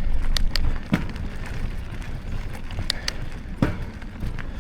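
Wind rumbling on the microphone, easing a little after the first second, with a few sharp clicks and knocks scattered through.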